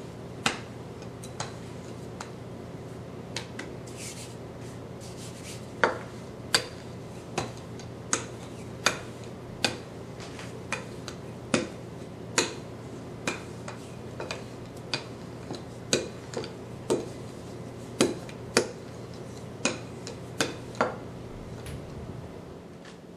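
Wooden rolling pin rolling out dough on a stone countertop, with sharp clicks about once or twice a second as the pin is pushed back and forth. The clicks stop near the end.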